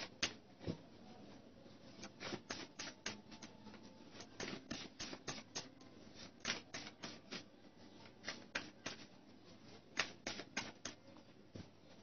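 Tarot cards being shuffled and handled: a run of light, irregular clicks and snaps of card stock.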